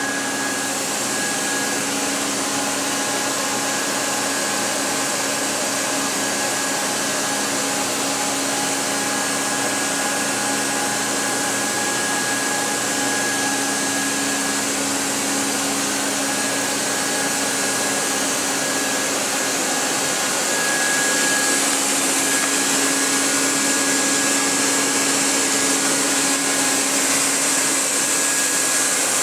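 Matsuura RA1 CNC vertical machining center powered up and running, a steady whir with a constant low hum and a faint high whine that comes and goes. It grows slightly louder about two-thirds of the way through.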